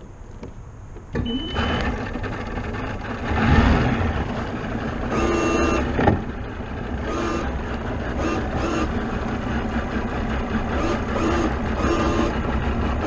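Bass boat's outboard motor starts about a second in and then runs steadily at low speed. Short tonal beeps sound now and then over it.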